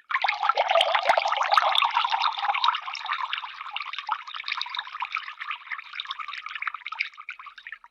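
Water being poured into a cup: a splashing, trickling stream, loudest for the first three seconds or so and then a little lighter, stopping suddenly near the end.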